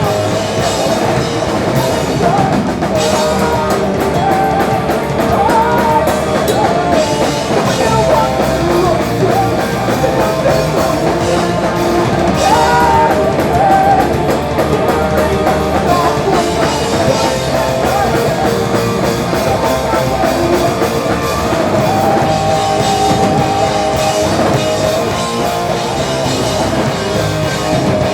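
A punk rock band playing live and loud: distorted electric guitars over a drum kit, continuous with no break.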